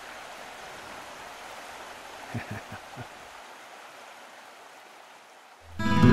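Steady rushing of a stream. A few brief soft sounds come about two and a half seconds in, and guitar music starts loudly near the end.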